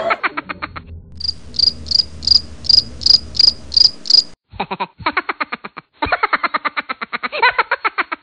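A high chirp repeating about three times a second for about three seconds in the middle, between stretches of rapid buzzing pulses.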